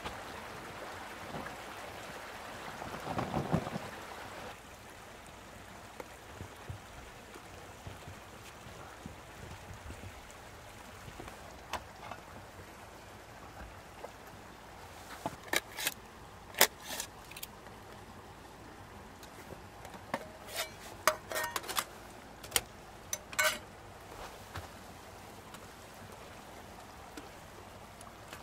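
Steady sizzle of a steak cooking in a pan over a wood-burning camp stove. A brief rustling burst comes a few seconds in, and sharp metallic clinks of cookware follow in the second half.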